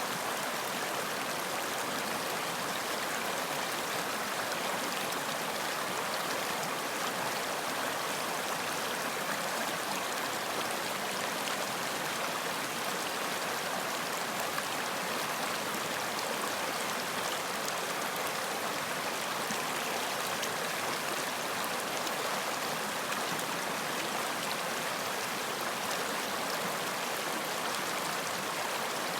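Running water in a stream, a steady, even rushing with no changes.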